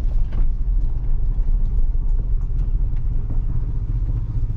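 Combine harvester's diesel engine running steadily under load, a loud low drone.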